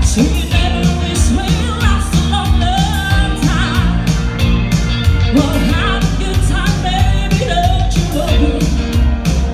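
Live band music: steady drum beats and a sustained bass line under a wavering lead melody, in an upbeat rock-and-roll style.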